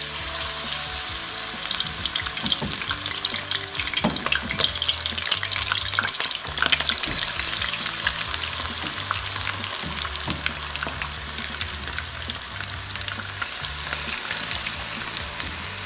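Marinated, cornflour-coated chicken drumsticks deep-frying in hot oil in a wok: a steady sizzle full of crackles and pops, a little louder in the first half.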